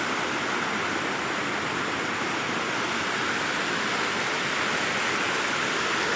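Mountain stream rushing and splashing over boulders below a waterfall: a steady, even rush of water.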